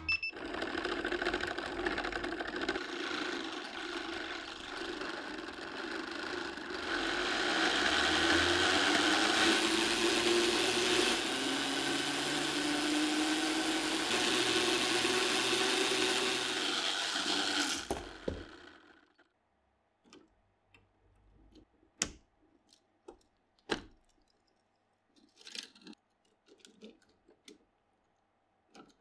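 Motorised Lego Technic treadmill running under a propeller-driven Lego car: a dense whirring and rattling of plastic motors, gears and tread links, louder about a quarter of the way in, with a faint slowly rising tone. It stops abruptly about two-thirds of the way through, and a few sharp plastic clicks and light knocks follow as Lego parts are handled.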